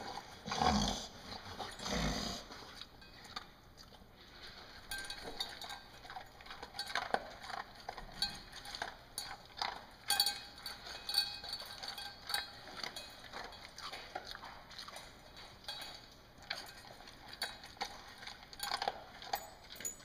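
Pointer mix dog eating from a stainless steel bowl: many small clicks and clinks of food and teeth against the metal bowl, with two louder thuds about a second apart near the start.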